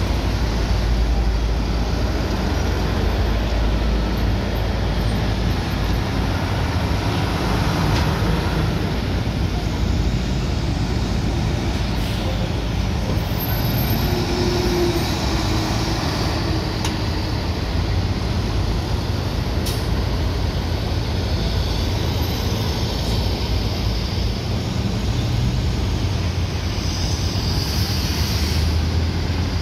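Steady road traffic: trucks, cars and motorcycles running along a busy multi-lane highway, an even rumble with no single event standing out.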